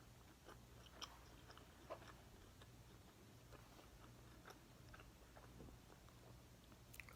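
A person chewing food quietly, with soft scattered mouth clicks and smacks, over a low steady hum.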